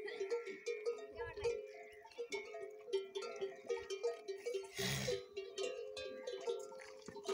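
Metal neck bells on drinking camels clanking and ringing irregularly as the animals move their heads at the trough. A short rushing noise stands out about five seconds in.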